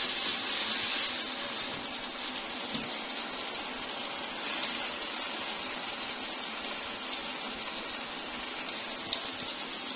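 Masala fish curry sizzling in the pan as it finishes cooking on the flame: a steady hiss, a little louder for the first couple of seconds.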